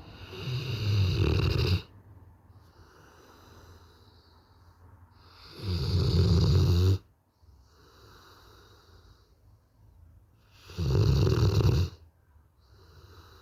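A Cane Corso dog snoring in its sleep: three loud, rasping snores about five seconds apart, with softer breathing between them.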